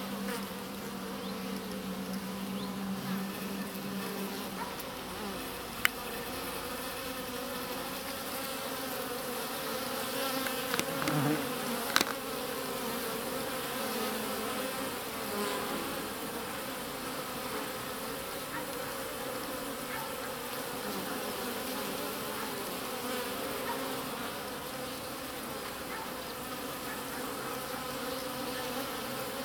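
Many honeybees buzzing at a hive entrance: a steady, dense hum, with a louder even-pitched buzz in the first few seconds. Two sharp clicks stand out, about six and twelve seconds in.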